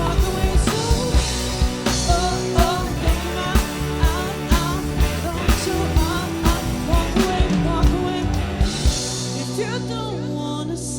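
Live cover band playing rock music with a singer and a steady drum beat. The drums drop out about nine seconds in, leaving a held bass note and the vocal.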